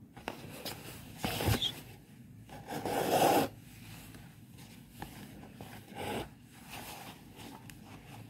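Embroidery thread being pulled through fabric stretched in a hoop: three scratchy drawn-out pulls, about a second, three seconds and six seconds in, the middle one the longest and loudest at about a second.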